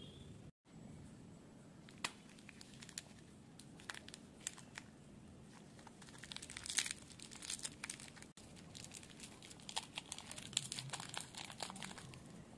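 Plastic candy wrapper crinkling and tearing as a wrapped sweet is opened by hand: scattered crackles, a louder burst about seven seconds in, and dense crinkling near the end.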